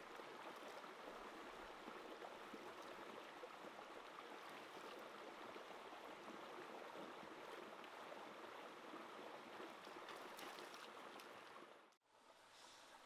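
Shallow rocky stream flowing, a steady faint rush of water that breaks off abruptly near the end.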